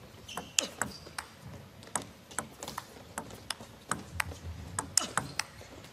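Table tennis rally: the plastic ball clicks sharply off the players' rubber bats and bounces on the table in a quick, uneven series, about two clicks a second.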